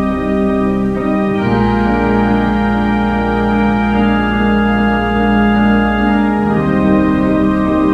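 Organ playing a carol in slow, held chords, the chord changing about a second and a half in and again near the end.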